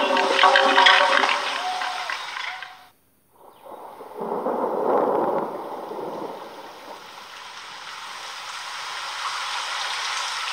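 Rain falling on water: a steady hiss that grows louder over the last few seconds. Before it, after a brief moment of silence, a low rushing swell rises and fades about four to six seconds in. The first two seconds hold held, pitched tones over noise.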